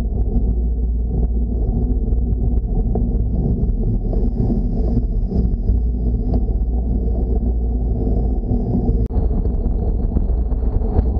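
Steady low rumble of wind and road noise on the microphone of an action camera mounted on a moving bicycle, with a faint steady high whine above it. The noise briefly drops out about nine seconds in.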